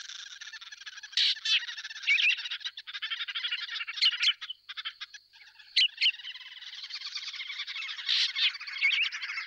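Dense, steady chorus of small animals chirring and trilling, with sharper chirps standing out every second or so and a brief break about five seconds in.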